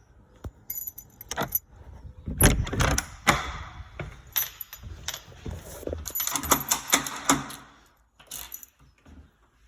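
A bunch of keys jangling, with a run of sharp metallic clicks and knocks from a nightlatch being worked with its key; it goes quiet about eight seconds in.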